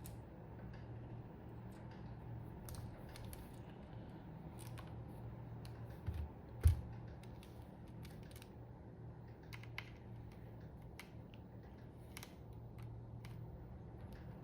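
Scattered small clicks and taps of plastic and metal parts as a mechanical keyboard is handled and taken apart, with one dull thump about six and a half seconds in, over a low steady hum.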